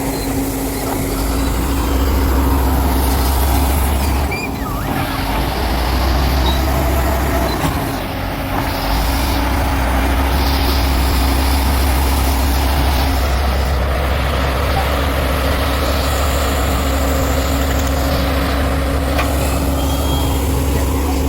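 Heavy construction machine's diesel engine running steadily at close range, its low hum dipping briefly twice in the first half.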